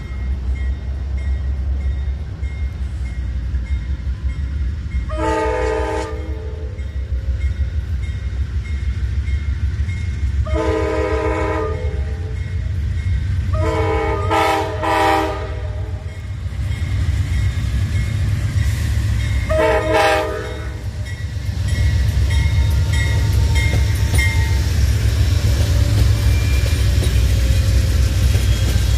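Amtrak locomotive's multi-chime air horn sounding several separate blasts on approach: two longer ones, a broken cluster of short ones, then one short blast. A steady low rumble of the train runs beneath the horn and grows louder near the end as the GE Genesis locomotive and its cars roll past.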